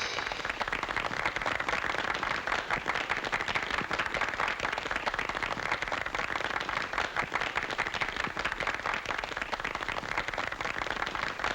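A crowd applauding steadily, a dense patter of many hands clapping.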